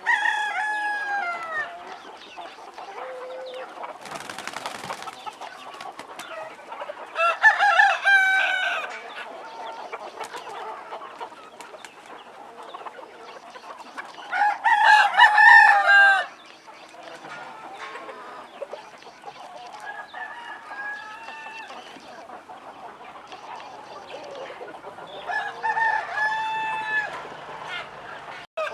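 Roosters crowing three times, each crow lasting about two seconds, with chickens clucking in between.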